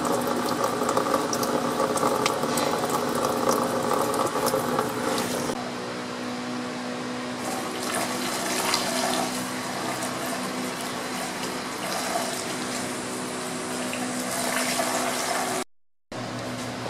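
Engine coolant (antifreeze) running in a thin stream from the radiator drain valve and splashing into a drain pan. After about five seconds it changes to coolant being poured from the pan through a funnel into a jug. A steady low hum sits underneath.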